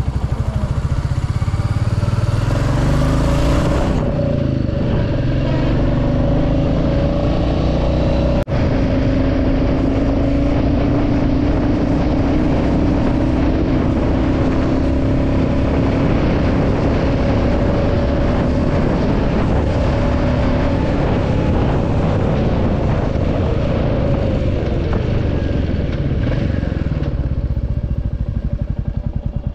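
Royal Enfield Classic 350's single-cylinder engine running steadily at riding speed, with wind noise on the camera microphone. Near the end it quietens as the bike slows.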